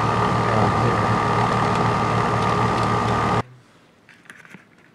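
Outdoor air-conditioning unit running with a steady hum and a constant high whine. It cuts off abruptly about three and a half seconds in, leaving only a few faint handling clicks.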